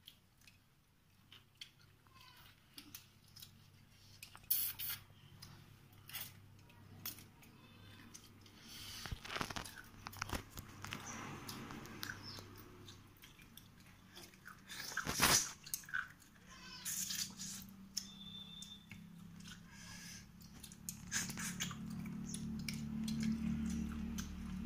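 Two people eating rice and curry by hand: close chewing with scattered crunches and light clicks of food and fingers against steel plates.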